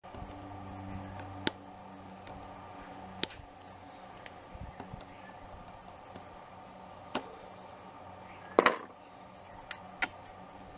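Pliers working the spring clip off the master link of a Sur Ron's O-ring drive chain: about six sharp metallic clicks spread through, the loudest about eight and a half seconds in, over a steady low hum.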